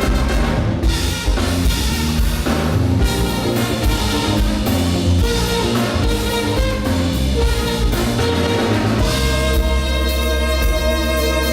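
Live saxophone-led band with brass and drum kit playing an instrumental funk tune; from about nine seconds in the band holds a long sustained chord.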